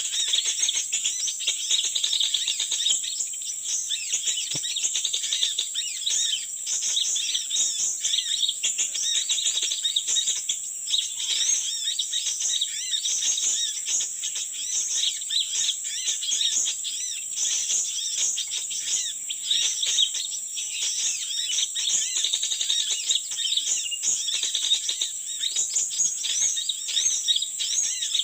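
Dense, continuous chorus of small songbirds: many quick overlapping chirps and twitters, high-pitched and unbroken throughout.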